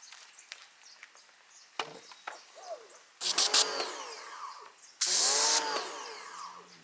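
Pressure washer fired in two short bursts, about three seconds in and again about five seconds in. Each burst is a loud spray hiss with the pump's whine rising and falling, and there are light clicks in between.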